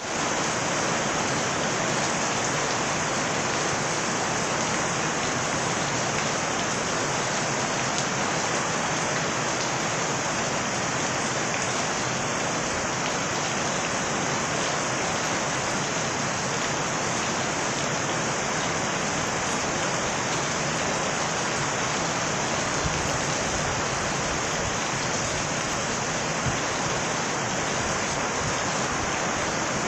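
Steady rain falling, an even, unbroken hiss of rain on the ground and surfaces, with a few louder single drops near the end.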